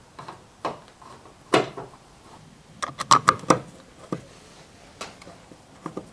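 Sharp plastic clicks and knocks of the door lock switch and handle trim being pushed and snapped into a pickup's door panel. The loudest knock comes about a second and a half in, and a quick run of clicks about three seconds in.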